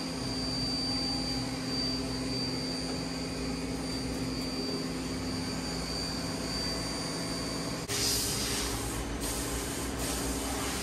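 Steady hum of shop fans and ventilation, with a thin high whine that stops about eight seconds in, where a broader hiss takes over.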